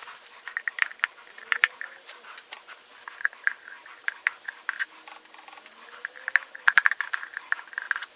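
A metal spoon scooping peanut butter from a jar into a measuring cup, scraping and tapping against the jar and the cup in a run of short scrapes and clicks. The scraping is busiest about seven seconds in.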